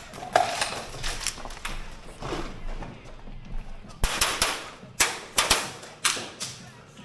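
Gas blowback airsoft guns firing a string of sharp shots, scattered at first, then in quick groups of two or three in the second half, which are the loudest.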